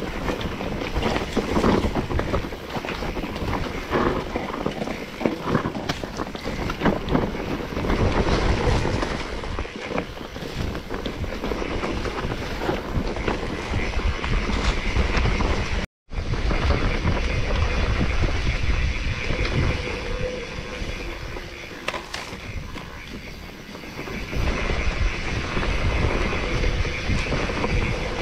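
Wind buffeting the microphone over a low, uneven rumble with scattered knocks; the sound drops out completely for a split second about sixteen seconds in.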